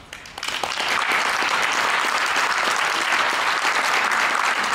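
Audience applauding, starting about half a second in and quickly swelling to steady, full applause.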